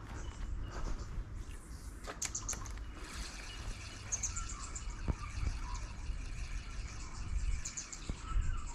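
Small birds chirping in several short, high trills over a steady low rumble, with a few faint clicks.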